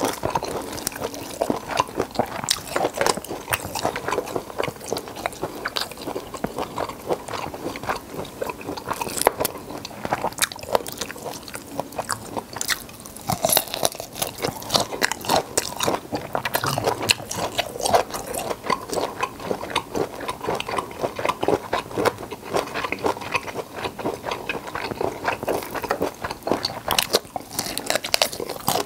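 Close-miked biting and chewing of cooked black tiger prawns, with a shell being pulled apart by hand: a dense, continuous run of crunches and small clicks.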